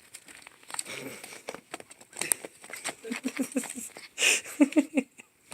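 Cat wrestling and batting a stuffed toy bear: scattered scratchy rustling, claw taps and light knocks, with a short rustling hiss about four seconds in.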